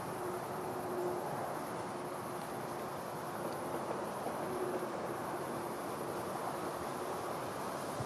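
Steady outdoor ambience by a calm river: a constant high chirring of crickets over an even low rush of background noise, with a faint hum that comes and goes.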